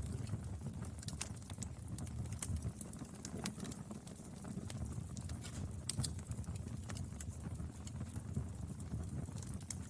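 Wood fire burning: irregular sharp crackles and pops over a low, steady rumble.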